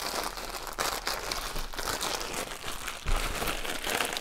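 Clear plastic bag crinkling and crackling as gloved hands knead it, working varnish into the hemp rope inside. There is a brief low thump about three seconds in.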